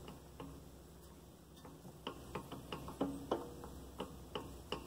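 The loose spindle shaft of a Harbor Freight Central Machinery 8-inch 5-speed bench drill press clicking and rattling in its housing as the chuck is worked by hand, a run of light irregular clicks that comes faster from about two seconds in. The rattle comes from a spindle shaft nut and adjustment screw left far too loose from the factory.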